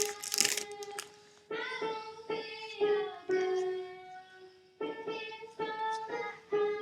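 Background music: a melody of held pitched notes, some gliding into the next, in phrases with short gaps.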